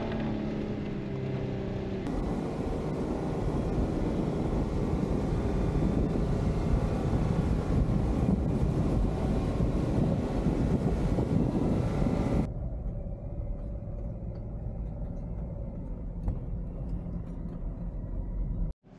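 Jeep Wrangler JK's V6 engine running as it drives through snow, with tyre and wind noise. It is a steady engine hum at first, then a dense rushing noise heard from outside the vehicle. About twelve seconds in it changes abruptly to a duller, quieter sound inside the cabin.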